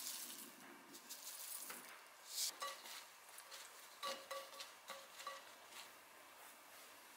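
Greens being tossed by a gloved hand in a glass bowl: a soft rustling of the wet leaves, with the glass bowl clinking and ringing briefly several times in the middle.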